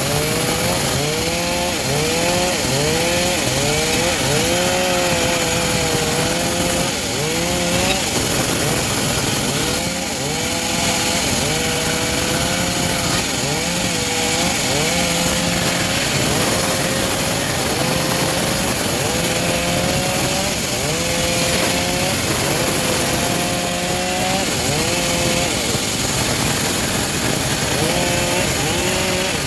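Homemade engine-driven bandsaw mill sawing through teak, running loud and steady, its engine pitch dipping and recovering over and over, about once a second, as the blade takes the load.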